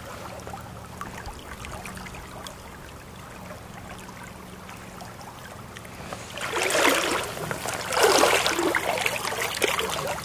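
Creek water running steadily, then two bursts of splashing about six and a half and eight seconds in, as a hand releases a small rainbow trout into the current.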